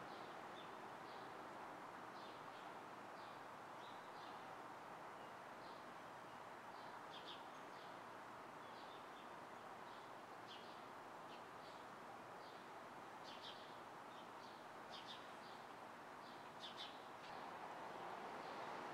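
Faint, steady hum of distant city traffic, with small birds chirping in short high calls throughout, in small clusters several times.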